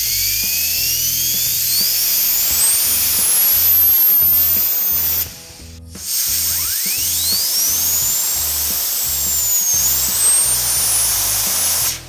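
Compressed air hissing from a blowgun nozzle into a small radial blower fan, spinning the fan up into a high whine that rises steeply in pitch. The air cuts off about five seconds in. Then the fan is spun up again, its whine rising, dipping slightly near ten seconds, and stopping at the end. The air is being let out to bleed the homemade compressor's tank down toward its 80 PSI restart point.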